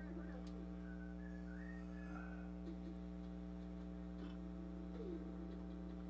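Steady electrical mains hum with its buzzy overtones, with faint small clicks of plastic power connectors being handled and fitted. A few faint wavering high notes come early on.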